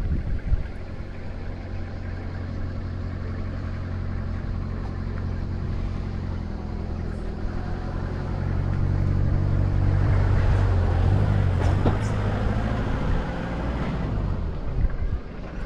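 A motor engine running steadily with a low hum. It grows louder from about eight seconds in and eases off shortly before the end.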